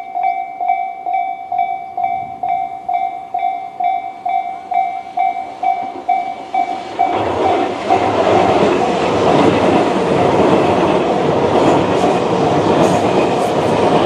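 Japanese level-crossing warning bell (Tobu 'sound C') ringing as a steady repeated ding. About seven seconds in, a Tobu 100 series Spacia train's running noise rises and drowns the bell as the train passes over the crossing.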